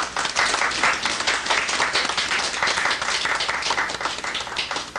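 A congregation applauding at the close of a sermon: dense, steady clapping from many hands that cuts off suddenly at the end.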